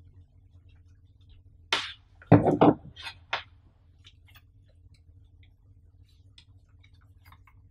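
Hard objects being handled: a sharp click, then a quick cluster of loud knocks about two and a half seconds in, two more clicks, and after that only faint light ticks.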